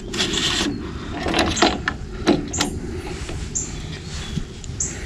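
Metal hardware and hand tools being handled while a boat-trailer buckle is bolted on: a short scraping rustle, then several light clicks.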